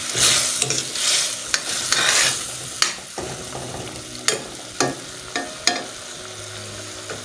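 Food sizzling in a pan as it is stirred, the hiss swelling with each stir in the first couple of seconds and then dying down. Several sharp knocks of the utensil against the pan follow.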